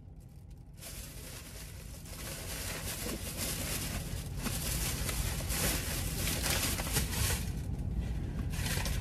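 A paper takeout bag and a plastic carrier bag rustling and crinkling as they are rummaged through, getting louder after the first second or so, over a low steady hum.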